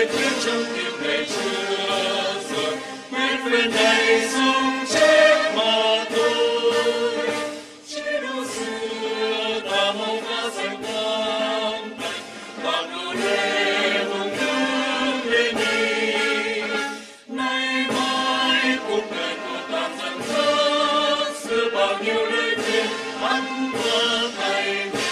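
A large standing assembly singing an anthem together, in long held phrases with brief pauses between them.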